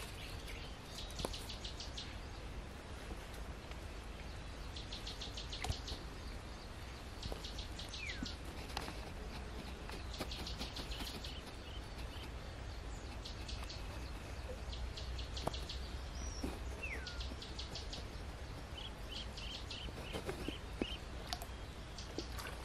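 Wild birds calling by a river: repeated short rapid trills, two falling whistles, and a quick run of short chirps near the end, over a low steady background rumble.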